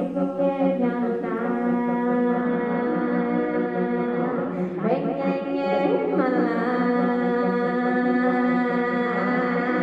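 A woman's voice singing long, held, chant-like notes, with several pitches sounding together as a sustained drone. The pitch slides about five seconds in and again about six seconds in.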